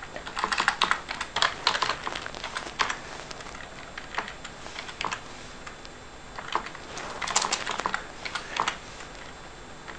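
Typing on a computer keyboard: irregular bursts of quick keystrokes, busiest in the first few seconds and again about seven seconds in, with a few scattered key presses in between.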